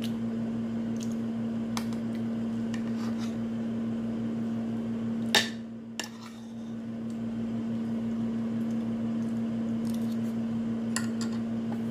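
Metal spoon and fork clinking and scraping against a plate, in scattered light clicks with one sharp clink about five seconds in, over a steady low hum.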